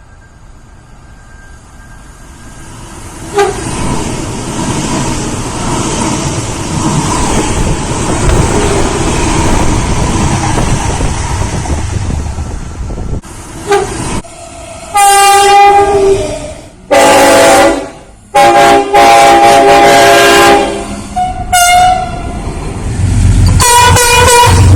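Locomotive horn on an approaching train. The rumble and rail noise of the train grow louder for about a dozen seconds, then the horn sounds five loud blasts, each several notes at once. The third blast is the longest, about two seconds, and the fourth is brief.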